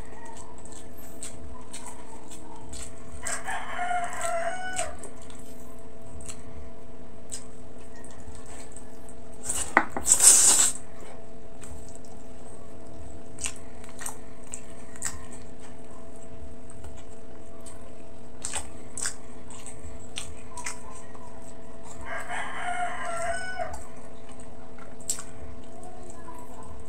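A rooster crowing twice, each crow about a second and a half long, over a steady low hum, with small wet clicks of eating by hand. About ten seconds in, a loud rushing noise lasts about a second.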